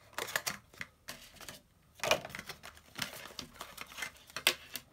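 Small product box and its packaging being opened and handled: a run of light clicks, taps and scrapes, with louder knocks about two seconds in and near the end.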